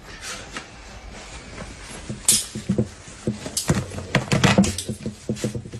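Rustling, crinkling and small clicks of plastic and gauze wrapping being handled and pulled open by gloved hands, irregular and busier in the second half.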